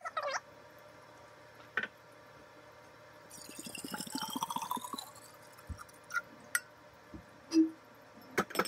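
Rosé wine glugging out of a glass wine bottle into a water bottle for about two seconds, its pitch rising steadily as the bottle fills. Around the pour come several sharp knocks and clinks as the bottles are handled, the loudest near the end.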